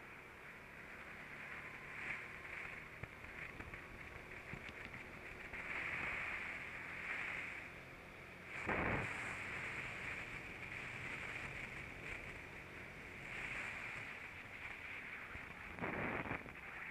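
Kart running on track, heard from an onboard camera as a muffled, steady engine and wind noise. Two short, louder bursts of rumble come about nine and sixteen seconds in.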